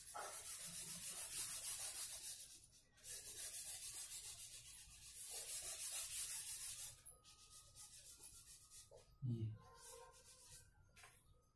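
Whiteboard eraser rubbing quickly back and forth over the board, wiping off marker lines, in two long spells over the first seven seconds, then softer short rubs.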